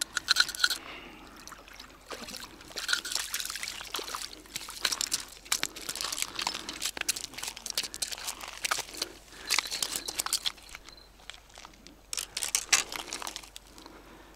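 Footsteps crunching on loose shore pebbles, with irregular clatters and scrapes of stones underfoot.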